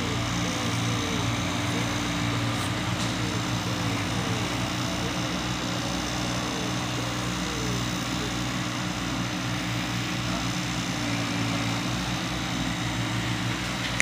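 A steady, unchanging low engine drone.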